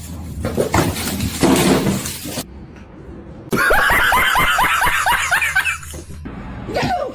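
A noisy scuffle-like stretch, then, about halfway through, a person bursts into rapid, cackling laughter for a couple of seconds.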